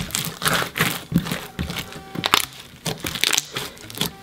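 Blue floam slime packed with foam beads and gold sequins being kneaded and squeezed by hand, giving irregular sharp crackles, several a second.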